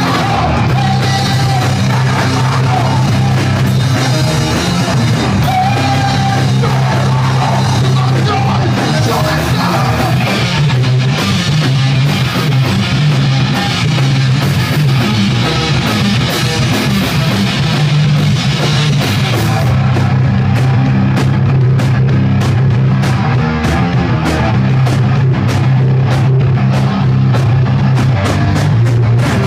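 A rock band playing loud and live, with drums, guitars and a shouted, yelled lead vocal. About twenty seconds in, the top end thins out and the drum strokes stand out as a steady beat.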